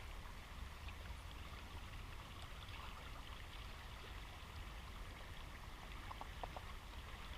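Faint steady rush of flowing river water, with a few faint short tones about six seconds in.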